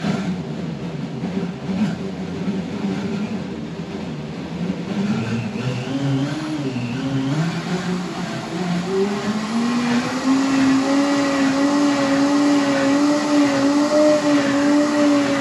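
Countertop blender motor starting at low speed and running up over about ten seconds as it is turned up to high speed, then holding steady at high speed while blending water and carrageenan.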